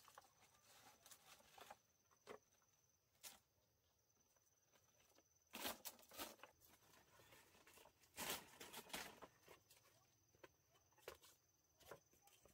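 Quiet, scattered rustling and crackling of leaf thatch on a bamboo shelter roof being handled and adjusted by hand, with a few light knocks, and two louder bursts of rustling about six and eight seconds in.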